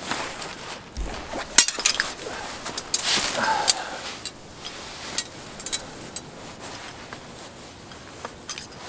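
Camping gear being handled and packed: rustling of a fabric bag and wrapping, with light clinks and clicks, busiest in the first few seconds and quieter later.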